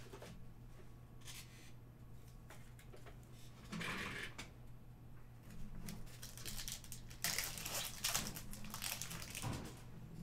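A foil trading-card pack wrapper crinkling as it is torn open and the cards are handled, with a short crinkle about four seconds in and a longer, louder stretch from about seven to nine seconds in. A low steady hum runs underneath.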